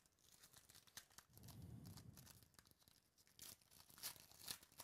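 Wrapper of a baseball card pack being torn open by hand: faint crinkling and tearing, loudest near the end.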